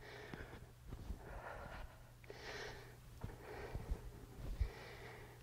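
A woman breathing audibly through a set of calf raises with shoulder shrugs, a soft breath about once a second as she catches her breath after a burst of cardio, with a few faint low knocks.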